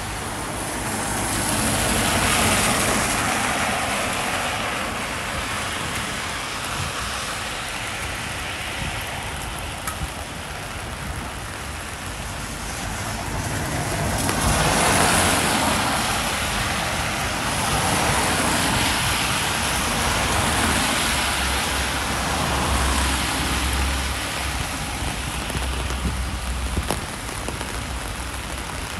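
Steady rain hiss with cars passing on a wet road. The passing tyre noise swells about two seconds in, again around the middle, and once more later on. A low engine rumble runs under it near the end.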